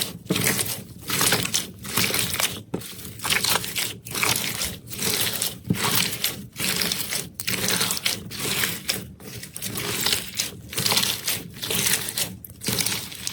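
Slime being squeezed and pressed by hand, making crackling, crunching noise in repeated bursts about one a second.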